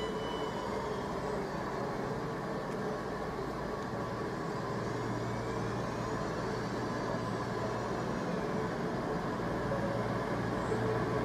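CrossCountry Voyager diesel multiple unit drawing slowly into the platform: a steady low running noise from its underfloor diesel engines, whose hum strengthens about four seconds in.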